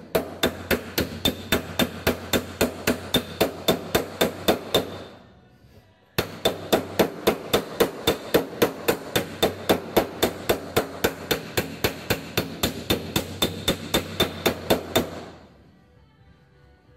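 Body hammer planishing a welded seam in a Torana's steel quarter panel: a fast, even run of metal-on-metal strikes, about five a second, that breaks off about five seconds in and starts again a second later, stopping near the end. The blows flatten the weld and stretch the steel of the heat-affected zone back out, countering the shrinkage left by welding.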